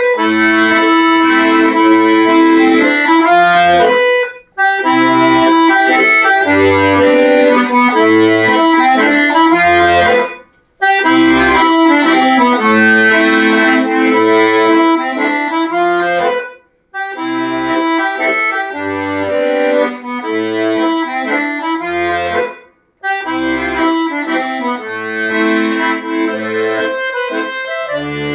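Two button accordions playing a mazurka together: a melody over regular low bass notes and chords. The phrases are broken by four brief pauses, about six seconds apart.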